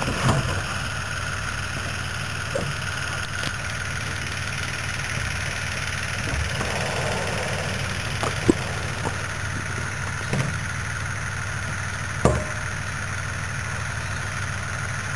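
Plastic barrels knocked a few times as they are rolled and set down on grass, over a steady motor-like hum.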